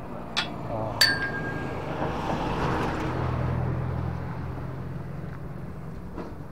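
Two sharp metallic clinks, the second the louder and briefly ringing, as the fish and line are hauled up over the bridge railing, then a car passing on the road alongside, its engine and tyre noise swelling and fading, with a soft tap near the end.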